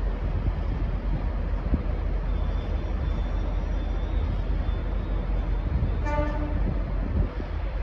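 V/Line N class diesel locomotive rumbling as it departs, with a brief single-note horn toot about six seconds in.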